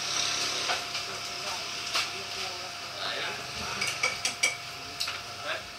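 A few sharp clinks and clicks, three in quick succession about four seconds in, over a steady hiss and hum.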